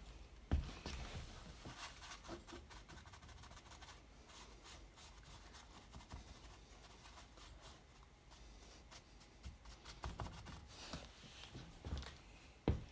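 A tool dabbing and brushing paint onto a canvas: faint scratchy strokes with scattered small clicks. There are sharp knocks just after the start and again near the end.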